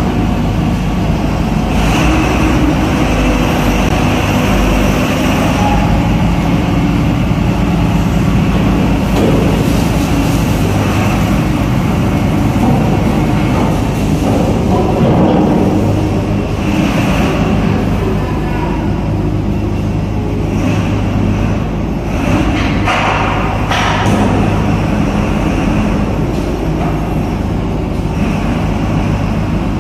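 Heavy vehicle engines, including a large forklift's, running steadily with a continuous low hum inside a ship's enclosed vehicle deck.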